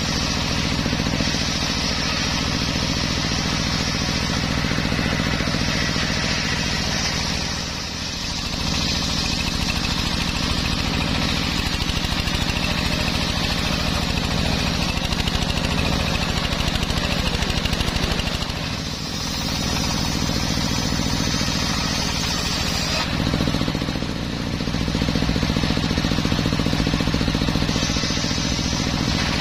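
Homemade engine-driven circular sawmill running steadily with its blade cutting into teak wood. There is a constant engine hum under a hissing saw noise that swells and eases, and the whole sound dips briefly three times.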